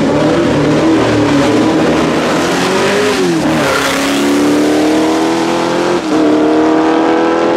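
1970 Abarth Proto SE race car's V8 engine held on the revs at the start, then dipping and climbing as the car pulls away hard. The pitch rises steadily, breaks briefly for an upshift about six seconds in, and climbs again.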